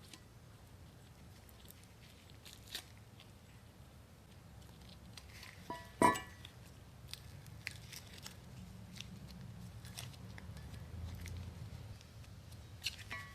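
Quiet handling of a brake caliper bracket and a packet of disc brake lube: faint crinkles and light taps, with one sharp metallic clink about six seconds in.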